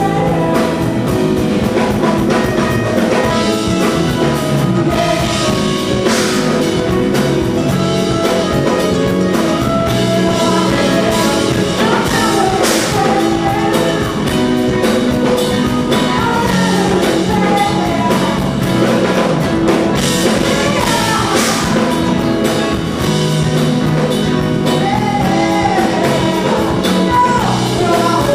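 Live band performing a jazzy soul song: a woman singing into a microphone over electric guitar and bass, with a steady beat.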